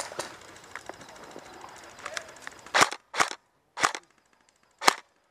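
Airsoft rifle firing single shots as sharp cracks: a couple of fainter ones early, then four loud ones in the second half, about half a second to a second apart.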